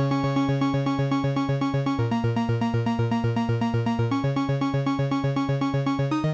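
Teenage Engineering OP-1 Field synthesizer playing a fast, even stream of repeated pulsing notes, a sequenced bass-and-lead pattern that steps to a new pitch about every two seconds.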